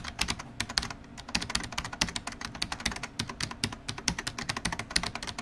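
Typing sound effect: a fast, uneven run of key clicks.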